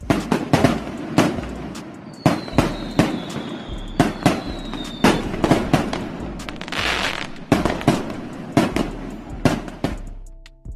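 Fireworks: a string of sharp bangs and crackles, with a slowly falling whistle from about two to five seconds in, dying away near the end.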